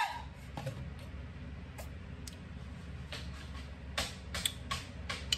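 Faint, scattered clicks and short taps over a low steady hum, sparse at first and more frequent from about three seconds in.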